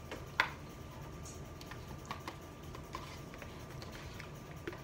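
Forks tapping and scraping inside instant noodle cups as two people eat: a sharper click about half a second in, then scattered light ticks.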